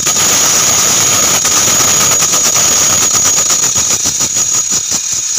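Battery-powered DC electric motor fitted to a bicycle, running steadily and spinning the rear wheel on a test run, with a constant high-pitched whine over a loud mechanical hiss.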